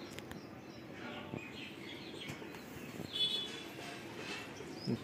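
Faint bird chirps, with a clearer chirp about three seconds in, and a few soft clicks.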